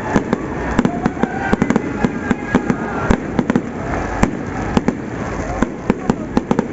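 Fireworks going off in a dense, irregular string of sharp bangs and pops, several a second.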